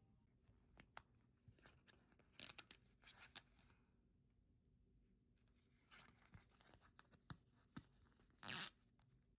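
Faint handling of a paper certificate card and its holographic stickers: scattered light clicks and paper rustles, with a short ripping sound near the end, the loudest of them.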